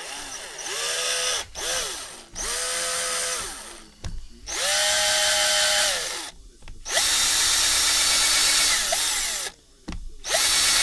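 Cordless drill cutting a counterbore into a wooden shotgun buttstock for a sling swivel stud, run in about five short bursts. The motor's whine rises in pitch as each burst starts and falls as it stops.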